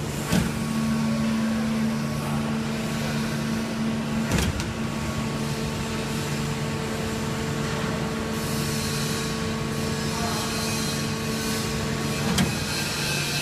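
Hydraulic injection moulding machine running through a moulding cycle: a steady low hum with sharp knocks near the start and about four seconds in. A hiss starts about eight seconds in as the mould opens, and there is another knock near the end.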